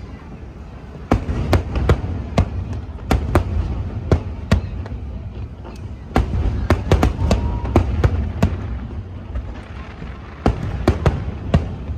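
Aerial fireworks bursting: many sharp bangs in irregular clusters, with short pauses between them, over a low rumble of booms.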